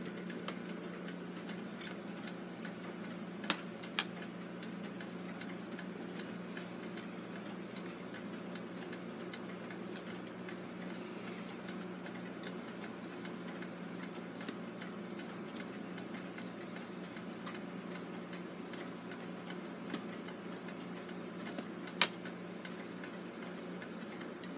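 Scattered small metallic clicks and taps, irregular and a few seconds apart, as the brass levers and wheels of a Gilbert clock movement are handled with fingers and tweezers while the strike levers are put back in place. A steady low hum sits underneath.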